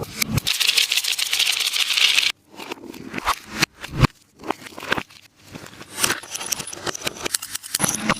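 Tape-covered taba squishy being squeezed and crinkled by hand. A dense crackling lasts about two seconds, then scattered crackles and pops follow, thickening again near the end.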